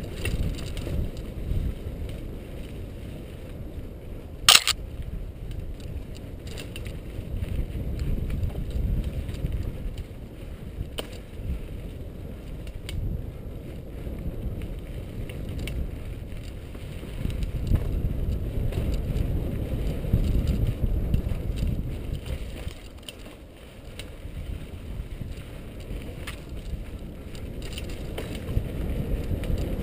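Mountain bike riding down a dirt single-track trail: a continuous rumble of tyres on dirt with the bike rattling, and a sharp clack about four and a half seconds in. The rumble eases briefly a little past twenty seconds.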